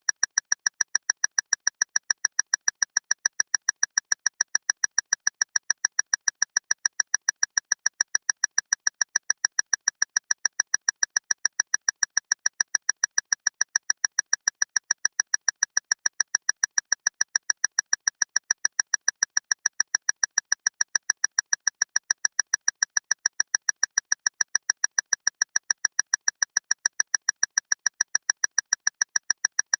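Clock ticking loudly and fast, an even, unbroken run of sharp, high-pitched ticks at several a second.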